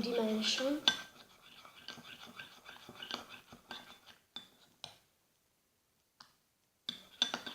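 Spoon stirring shampoo and salt in a small bowl, clinking and scraping against the bowl in scattered light taps. A gap of almost two seconds comes near the end.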